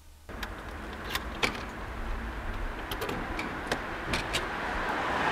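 Road traffic noise that starts abruptly and grows louder toward the end, with a few sharp clicks scattered through it.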